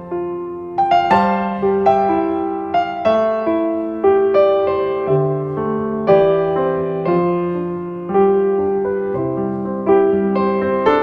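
Background piano music: a gentle melody of struck notes over held chords, a new note about every second, each fading away.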